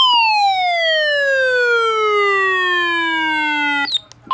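A siren-like wail with many overtones, sliding steadily down in pitch from high to low like a siren winding down. It cuts off suddenly a little before the end, followed by a short click.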